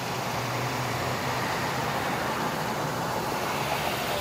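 An engine running steadily: a low hum under an even wash of noise.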